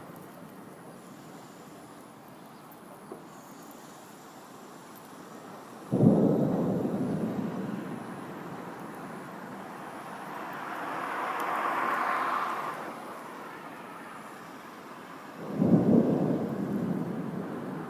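Two claps of thunder, about six seconds and about sixteen seconds in, each starting suddenly and rumbling away over a couple of seconds, over a steady hiss of rain. In between, a whoosh swells and fades.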